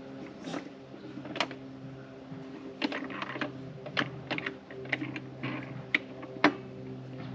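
Irregular sharp clicks and light taps of hands and tools working on a Ridgid 10-inch job site table saw while its blade is being checked and adjusted for square; the loudest click comes near the end. A steady low hum runs underneath.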